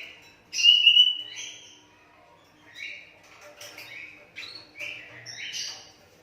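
Young hand-reared Asian pied starling giving a string of harsh, rasping calls, the loudest about half a second in, followed by several shorter ones.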